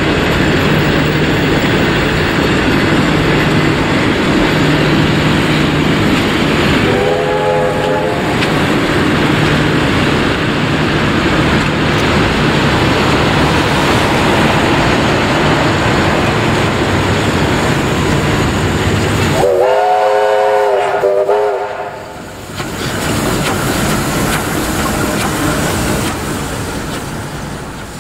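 Heritage passenger carriages of a steam-hauled train rolling slowly past, wheels clacking on the rails over a steady low hum. A K-class steam locomotive's chime whistle sounds briefly about seven seconds in, and again louder and longer about twenty seconds in.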